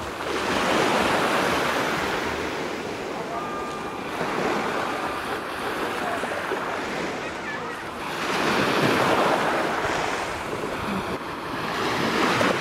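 Small sea waves breaking and washing on a pebble shore, the surf swelling and falling back, loudest about a second in, again after about eight seconds and near the end.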